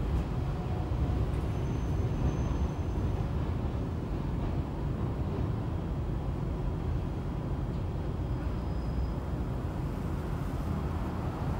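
Hiroden 5100-series low-floor articulated tram running along street track, heard from inside the car: a steady low rumble of wheels and traction equipment at an even speed.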